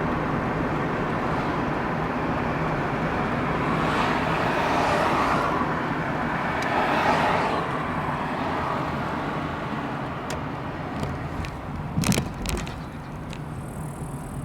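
A car driving, with steady engine and road noise; the noise swells for a few seconds midway, and a sharp knock comes near the end.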